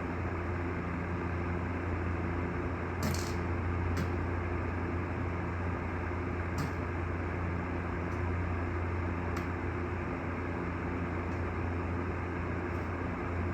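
A steady low mechanical hum with a few brief faint clicks.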